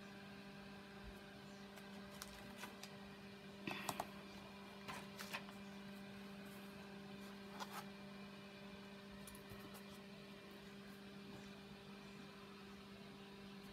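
Steady low electrical hum, with a few faint taps and rustles about four, five and eight seconds in from a plastic quilting ruler being handled on paper.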